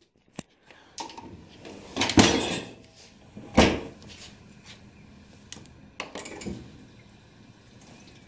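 Dishwasher being closed: dishes rattling in the racks, then the door shutting with a clunk, followed by a few softer knocks.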